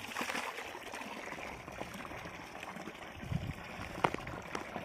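Water running steadily from the outlet of a 0.33 hp submersible pump in a newly drilled borewell, as the well is flushed and the water is still cloudy with sand. A sharp click about four seconds in.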